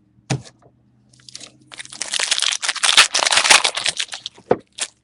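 Trading card pack wrapper being torn open and crinkled: a dense crackling rustle lasting about two seconds, with a sharp click before it and a couple more just after.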